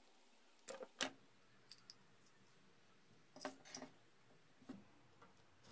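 Sparse light clicks and taps of small plastic lighter parts being handled and pried apart: two sharp clicks about a second in, a short cluster a little past the middle, and one more near the end.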